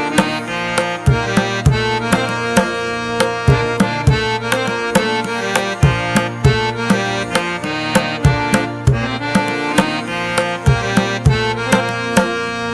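Background music with tabla-like hand-drum strokes over held melodic tones, at a steady beat.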